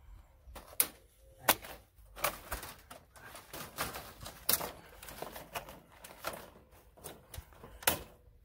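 Plastic clips snapping and plastic parts clicking and knocking as the mesh grille insert is pried out of a Peugeot 308 front bumper. The snaps come irregularly, the loudest about a second and a half in and near the end.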